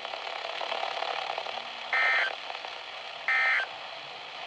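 NOAA Weather Radio's EAS end-of-message code: two short digital data bursts a little over a second apart over steady radio hiss, marking the end of the flash flood warning broadcast.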